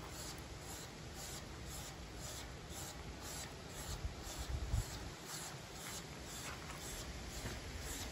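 Knife blade being stropped on a leather belt pulled taut, a soft swish with each stroke at about two strokes a second. A short low rumble comes about halfway through.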